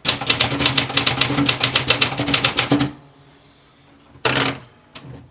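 Olympia Traveller Deluxe manual portable typewriter being typed on fast: a quick run of sharp key strikes, about eight a second, for roughly three seconds. About a second later comes one longer stroke of the machine, then a single click.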